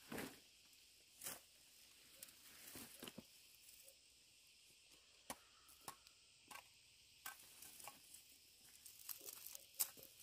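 Quiet outdoor ambience: a faint steady high insect drone with about ten scattered light knocks and rustles.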